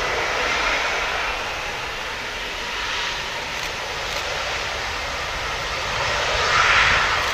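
Boeing 767-200ER's twin jet engines running at taxi power as the airliner rolls onto the runway. It is a steady rushing whine that swells briefly near the end.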